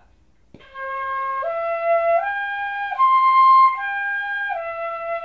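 A pífano (Brazilian fife) in C plays a slow C-major arpeggio, dó–mi–sol–high dó, then back down through sol and mi, as a warm-up exercise. It starts about half a second in with each note held about three-quarters of a second, and the high dó is the loudest note.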